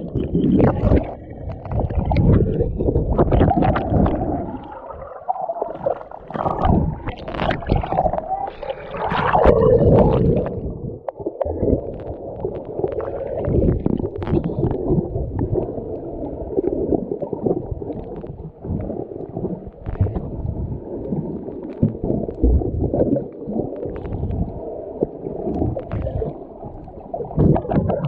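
Muffled water noise: gurgling and sloshing, most of it low and dull, with crackling handling noise against the microphone.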